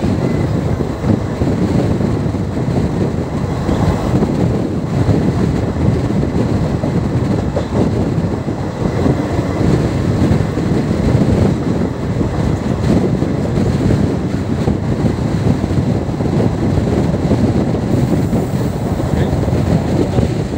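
Steady rush of wind buffeting the microphone over the running noise of a moving passenger train, heard from an open coach door.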